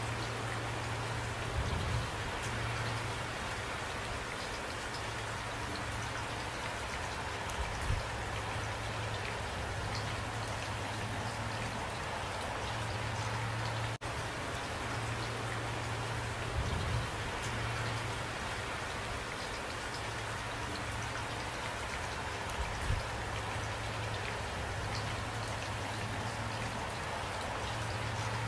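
Steady rain falling, a dense even patter of drops, over a low steady hum, with a few brief louder knocks scattered through.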